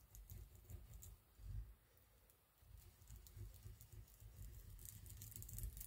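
Faint handling noises of paper and card being moved and pressed on a craft table: light rustles and small clicks, with soft bumps.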